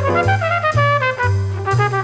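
Background music with a steady beat: a melody in several parts over bass notes that change about twice a second.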